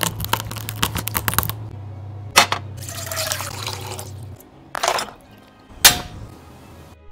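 A run of quick taps and clicks, then a few seconds of liquid bubbling and hissing in a pot on a gas burner, with sharp knocks near the end, over soft background music.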